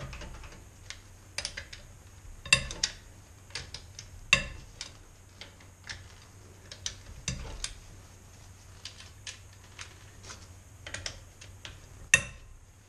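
Breaker bar with a 17 mm socket being fitted to and turned on a car's wheel bolts to loosen them: irregular metallic clicks and clanks, the loudest about two and a half and four and a half seconds in.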